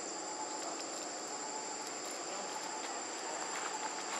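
Insects calling in a steady, high-pitched chorus.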